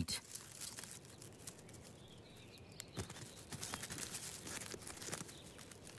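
Soft, irregular crackling and rustling of dry leaf litter as wood ants crawl over it.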